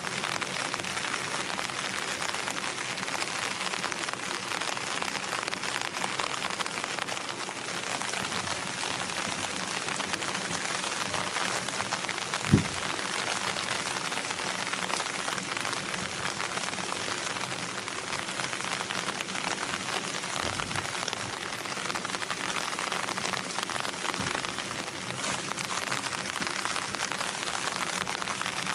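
Steady rain falling, an even hiss throughout, with one sharp low thump near the middle.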